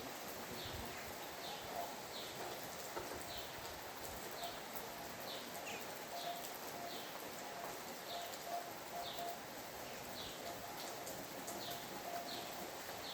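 Steady rain hiss with a bird repeating a short, high, falling call about every second, and fainter low notes pulsing underneath.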